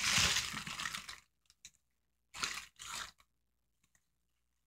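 Clear plastic packaging crinkling and rustling as it is handled, for about a second, then two short rustles around the middle.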